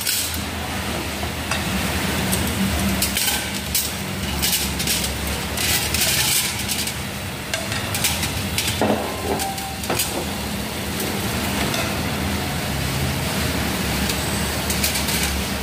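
Food sizzling and crackling on a tabletop grill pan heated by a portable gas stove, over a steady low hum.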